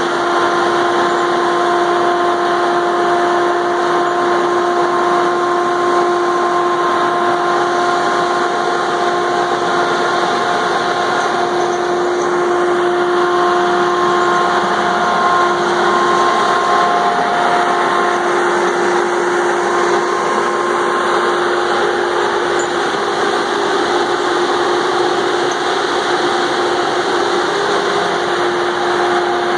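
Diesel engine of a Valmet 603S wheeled feller buncher running steadily as the machine drives and turns, with a constant whine over the engine noise.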